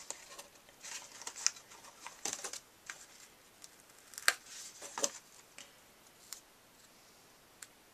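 Light rustles and scattered sharp clicks and taps of paper and small craft pieces being handled on a cutting mat.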